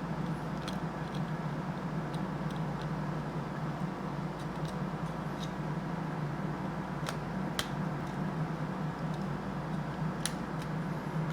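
Steady low background hum, with a few faint light clicks of small plastic model-locomotive parts being handled and worked apart.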